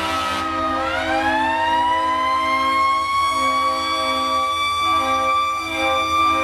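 Fire engine siren falling in pitch, then rising again about a second in and holding a steady wail. Lower horn tones sound on and off underneath.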